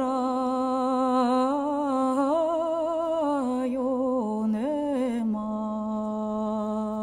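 A solo voice singing a slow, wordless melody with vibrato, the notes stepping up and down and settling on a long held low note for the last two seconds or so.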